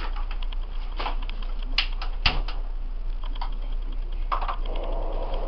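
Irregular light clicks and knocks of cookware being handled at a gas stove, with one sharper knock about two seconds in, over a steady low hum.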